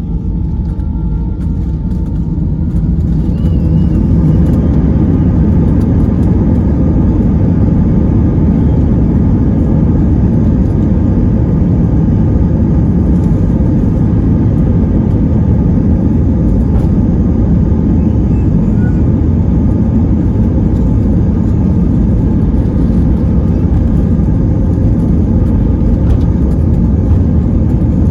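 Airbus A319 jet engines heard from inside the cabin, their whine rising in pitch and loudness over the first few seconds, then a loud, steady rumble as they hold high thrust.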